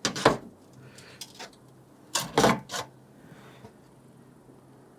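Coil spring being slid off a Honda CT110 front fork tube: sharp metal clinks and rattles, a loud one at the start and a quick cluster about two seconds in.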